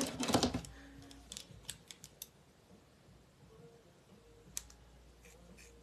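Scissors snipping through a section of long hair held between the fingers: a few faint, separate snips, one louder snip past the middle. The cutter complains that these scissors are bad and don't cut well.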